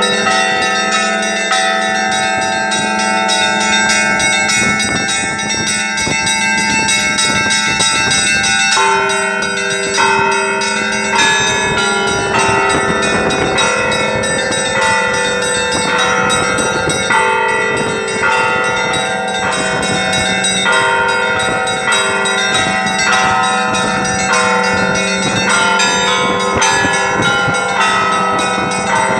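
Church bells ringing a festive Easter peal: many bells struck in quick, continuous succession over a low, steady hum from a large bell, the pattern shifting about nine seconds in.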